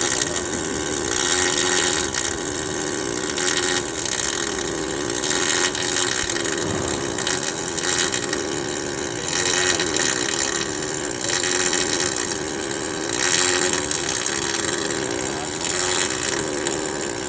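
Welding arc on thin aluminum sheet, a steady hissing crackle that swells and eases as the bead is laid, over a constant low hum.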